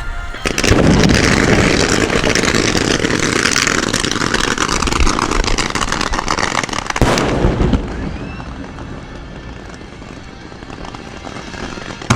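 Fireworks finale: a dense, rapid crackle of many bursting shells starts about half a second in. A loud bang comes at about seven seconds, then the sound dies down to fainter scattered pops before another sharp bang near the end.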